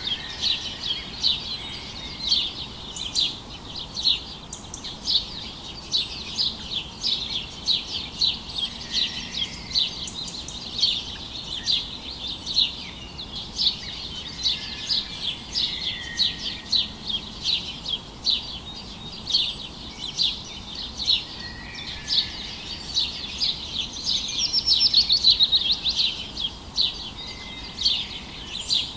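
Birds chirping without pause: many short, high chirps several times a second, with a louder rapid trill about 25 seconds in.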